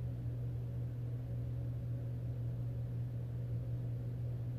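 Steady low hum with a faint hiss underneath: room tone.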